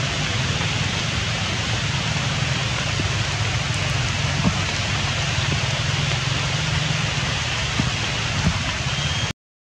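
Steady rain falling, with a few faint drips and taps standing out; the sound cuts out for a moment near the very end.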